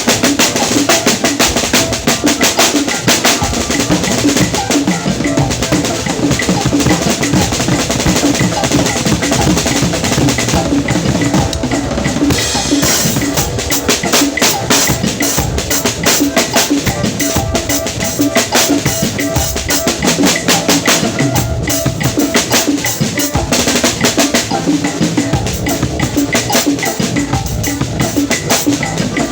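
A drum kit being played without a break, with bass drum and snare hits in dense, fast strokes.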